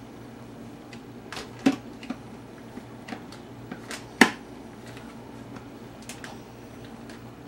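Plastic lid being fitted and pressed onto a glass blender jar: a few sharp clicks and knocks, the loudest about four seconds in.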